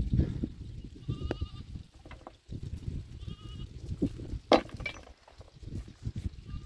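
Two short, wavering bleats from a goat or sheep, about two seconds apart, over a constant low rumble, with a sharp knock about four and a half seconds in.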